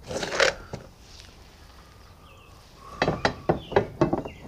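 Metal parts clinking and knocking as they are handled: a few sharp clinks, a pause, then a quicker run of knocks about three seconds in.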